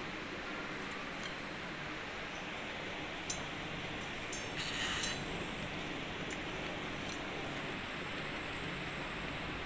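A cockatiel pecks and knocks at its toys, making scattered small clicks and taps. There is a brief rattle about five seconds in, over a steady hiss.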